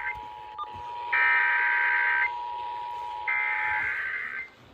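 Emergency Alert System tones: three SAME digital data bursts, each about a second long and a second apart, over the steady two-tone EAS attention signal, which stops near the end.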